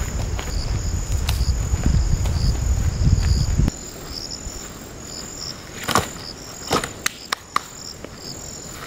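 Insects chirping in the surrounding forest: repeated short, high-pitched chirps over a steady high whine. For the first few seconds a loud low rumble lies under them, then cuts off abruptly. A few sharp clicks and knocks come about two-thirds of the way through.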